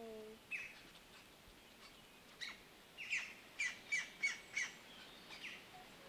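Juvenile green woodpecker giving short, sharp calls: single notes here and there, with a quick run of five, about three a second, near the middle.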